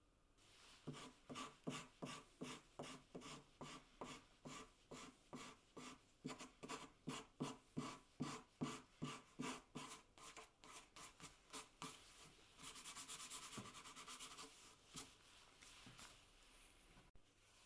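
Sanding sponge rubbed back and forth by hand over the router-cut end of a wooden hanger, about two to three scraping strokes a second. Near the end it turns into a quicker, steadier scrubbing, then a few last strokes. The sanding smooths away chipping and rough grain left by the router.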